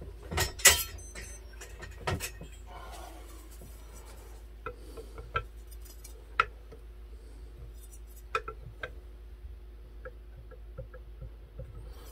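Metal notched straightedge clinking against a guitar neck's frets as it is set down and shifted: several sharp clicks in the first two seconds, then scattered light ticks.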